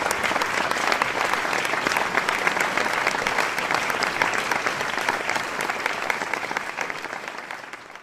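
Audience applauding, many hands clapping together, fading out near the end.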